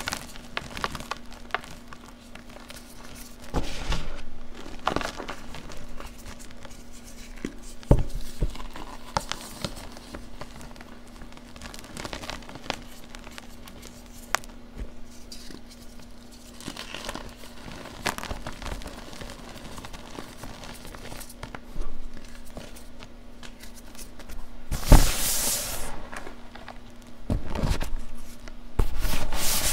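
Hands crushing and squeezing gym chalk chunks and powder: soft, irregular crunching and crackling, with louder crunches now and then, the loudest about five seconds before the end.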